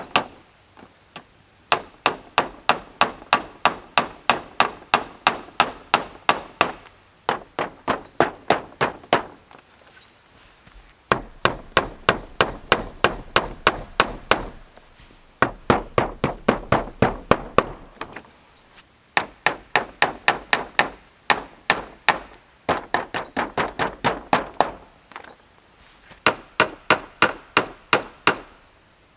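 A hand tool striking wood, about three sharp blows a second, in runs of a few seconds with short pauses between them.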